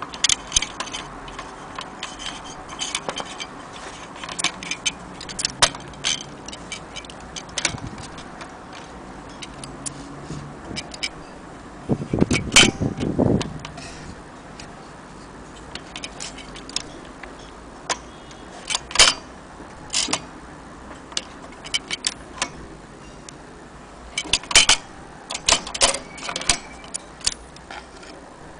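Vintage 1930 Corona portable typewriter being operated: irregular sharp clicks of the keys striking, with a longer clatter about twelve seconds in.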